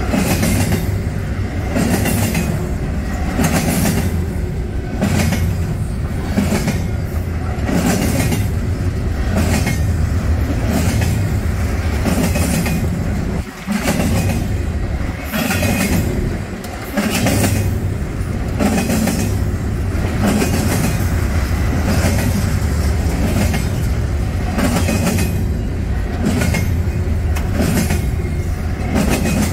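Double-stack intermodal container train passing at speed: steel wheels of the well cars clatter over rail joints in a steady repeating rhythm a little more than once a second, over a continuous low rumble.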